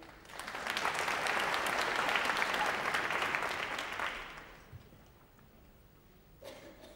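An audience clapping for a graduate whose name has just been called, swelling in within the first half second, holding for about four seconds and then dying away.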